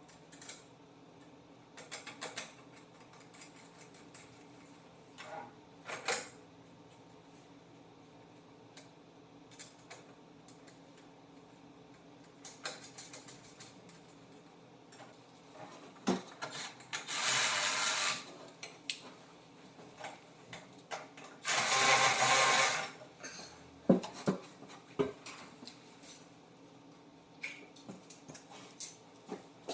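Small clinks and taps of nuts, washers and bolts being handled. Twice, about halfway through and again a few seconds later, a small power tool runs for about a second and a half, likely driving the nuts down onto the seat's mounting bolts.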